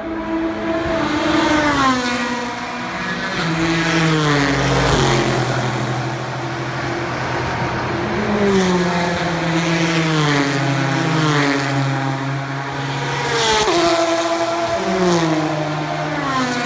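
Endurance race cars passing at high speed one after another, several in turn, each engine note dropping in pitch as the car goes by.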